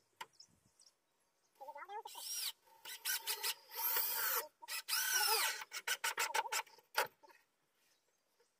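Power drill running in three bursts, its motor whine rising and falling in pitch with the trigger, followed by a single sharp click.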